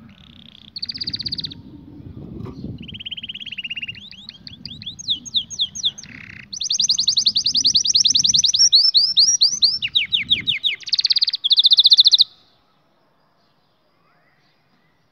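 Domestic canary song: a string of fast rolling trills, each held for a second or two before switching to a new pitch and tempo, loud and continuous. It cuts off abruptly about twelve seconds in.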